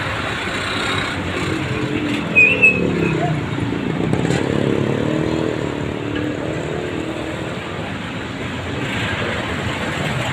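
Street traffic noise, with a motor vehicle's engine passing close by from about three to seven seconds in, its pitch rising and falling. A short high squeak sounds about two and a half seconds in.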